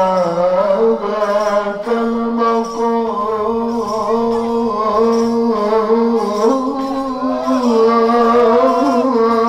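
A man singing an Arabic devotional qasida unaccompanied, drawing out one word over many seconds in a long ornamented melisma: held notes with slow pitch turns and few breaths.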